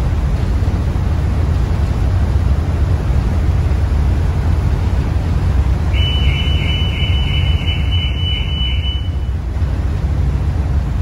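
Steady low rumble of the ferry underway. About six seconds in, a car alarm sounds a high pulsing beep for about three seconds, one of the alarms set off by the ferry's hard turn.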